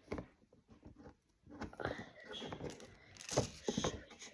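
Irregular handling noises of small plastic items and packaging: clicks, taps and rustling, pausing briefly about a second in and busiest near the end.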